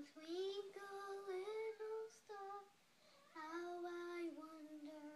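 A young girl singing a slow tune, holding long notes, with a short pause about halfway through.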